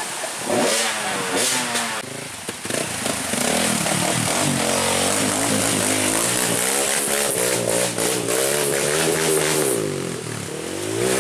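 Trail motorcycle engine revving hard, its pitch rising and falling over and over, dipping near the end and climbing again.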